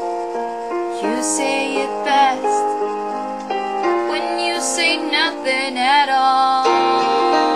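Woman singing held, wavering notes over a piano or keyboard backing track. The voice comes in about a second in and drops out near the end, leaving the accompaniment.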